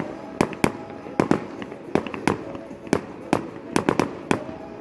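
Fireworks display: about a dozen sharp bangs in quick, irregular succession, several a second at times.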